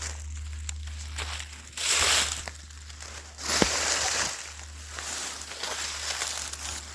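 Footsteps and brush rustling of people walking through the woods, with two louder crunching rushes about two and three and a half seconds in and a sharp snap near the second. A steady low hum runs underneath.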